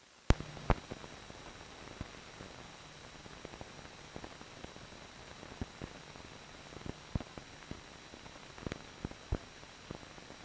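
Surface noise of an old optical film soundtrack: a steady hiss with irregular clicks and pops from dust and scratches on the print, starting with a sharp click.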